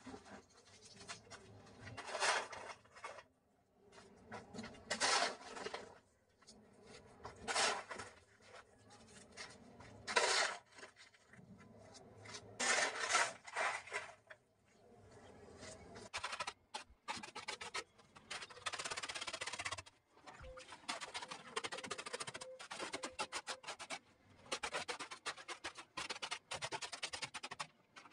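A hoe scraping and dragging sandy soil and rubble across a concrete floor, with separate strokes about every two and a half seconds. About two-thirds of the way in, the scraping turns into quicker, closer-spaced scratching.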